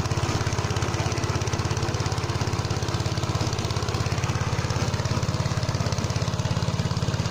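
Engine of a Motor Sich walk-behind tractor running steadily with an even fast pulse while its rotary tiller mills the soil.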